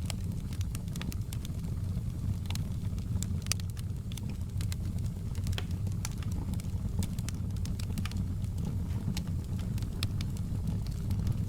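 Wood fire crackling in a fireplace: a steady low rumble of flames with frequent irregular pops and snaps.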